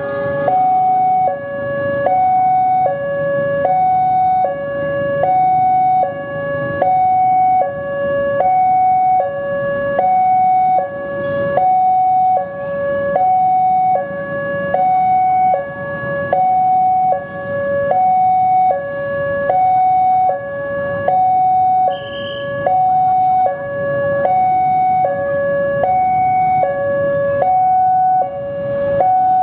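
Railway level-crossing warning alarm sounding steadily, an electronic two-tone signal alternating between a high and a low pitch, with road traffic running underneath: the signal that a train is approaching and the barrier is down.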